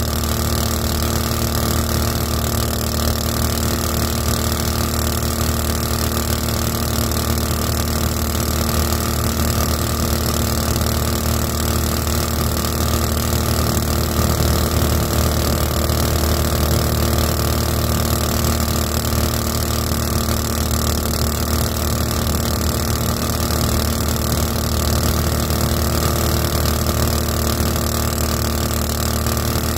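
Small boat motor (the '224') driving a 7-inch two-blade prop, running at a steady, unchanging speed.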